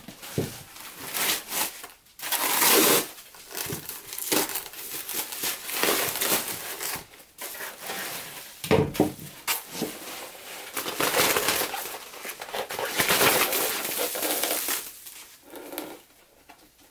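Plastic-backed puppy pad crinkling and tearing as a cured spray-foam shell is pulled off a stainless steel bowl. The noise comes in irregular bursts and dies down near the end.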